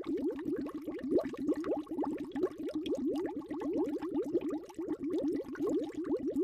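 Underwater bubbling sound effect: a steady stream of many small bubbles, each a short rising blip.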